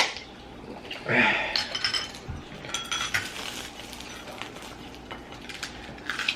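Cutlery and dishes clinking during a meal: scattered sharp clinks of utensils against plates, with a brief voice about a second in.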